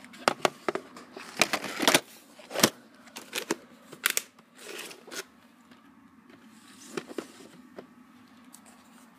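Clicks, taps and rustling from a VHS tape and its case being handled, with a burst of sharp knocks in the first few seconds and a few more clicks later.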